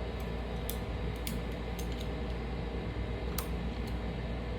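Several light clicks and taps of calipers being handled and set against a small turned wooden piece, over a steady low hum.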